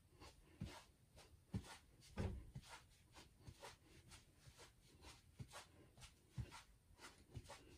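Faint, irregular thuds of feet stepping down on a floor during a marching knee-raise exercise, about one or two a second, the loudest about two seconds in.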